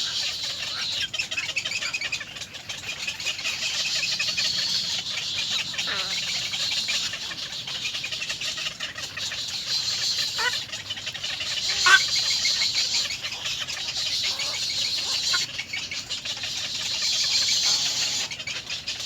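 Bird calls and chirps over a steady high-pitched hiss, with one sharp rising call about twelve seconds in.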